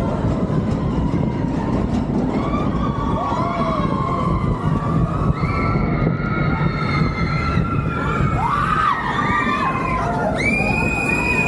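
Expedition Everest roller coaster train running along the track with a steady loud rumble and wind noise. Over it, riders scream and whoop in rising and falling shrieks, with a long high scream near the end.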